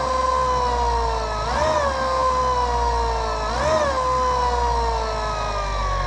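Golden Motor HPM 10kW dual-stator permanent-magnet synchronous motor spinning unloaded on the bench, off throttle and coasting down from about 3,500 rpm: a steady electric whine that slowly falls in pitch, with a brief upward wobble about every two seconds.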